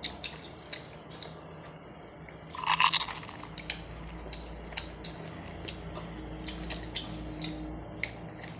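Biting into and chewing roasted corn on the cob: a scatter of short, sharp crunches as kernels are bitten off the cob, with a louder burst about three seconds in.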